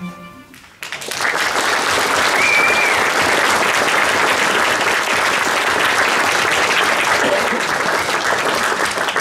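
The last chord of a string ensemble dies away, then just under a second in a roomful of people breaks into loud, steady applause.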